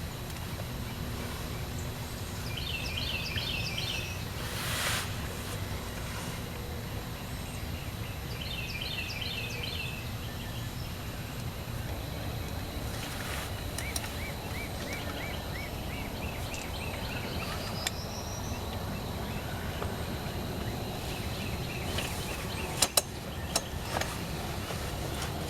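Songbirds singing in short runs of quick repeated high notes, several times, over a steady low outdoor rumble. A few sharp clicks sound near the end.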